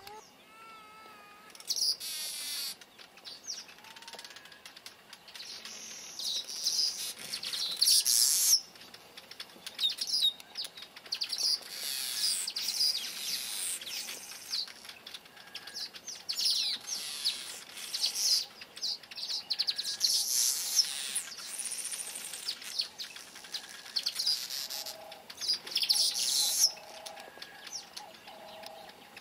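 Village weavers chattering: repeated high-pitched bursts of rapid stuttering calls, each a second or two long, from males at the nest colony.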